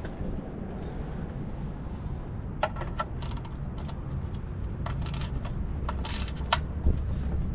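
Scattered light metallic clinks and ticks from hand tools being handled, over a low steady hum.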